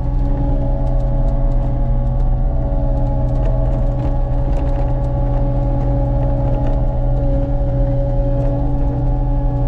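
Forestry mulching machine running steadily: a deep diesel engine note under an even, held whine, with scattered faint ticks.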